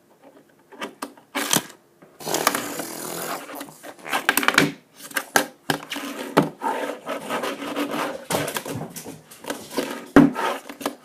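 Tech Deck fingerboard being flipped and landed on a hard surface: irregular wooden clacks and knocks, with a stretch of rolling or scraping noise about two seconds in.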